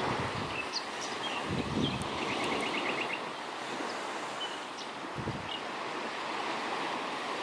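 Small waves washing on a sandy beach, with wind gusting on the microphone.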